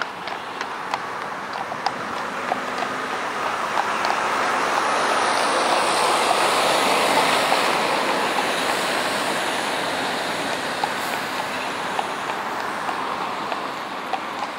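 A large lorry passes close by on the road, its engine and tyre noise swelling to a peak about halfway through and then fading. Throughout, a heavy horse's hooves clip-clop on tarmac at a walk.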